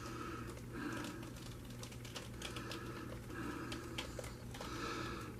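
Faint scattered light clicks and taps as the painted saw blade is tipped on the small plastic cups holding it up, ending in one sharp click.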